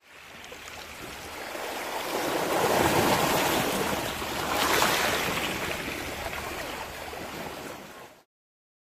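Sea waves washing onto a shore, a steady surf that swells to a loud wash around the middle, then fades and cuts off abruptly near the end.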